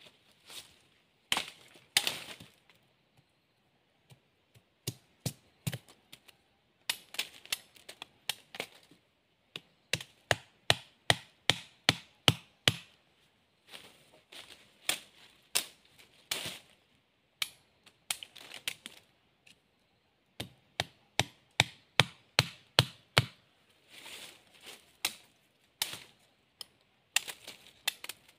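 Machete strokes chopping and trimming bamboo sticks: sharp knocks in quick runs, with short pauses between the runs.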